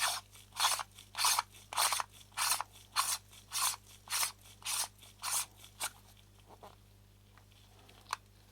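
Rubber lens tool scuffing against a lens ring in a run of about ten short, even strokes, a little under two a second, as the ring is turned in its thread; then a few faint ticks and one sharp click near the end.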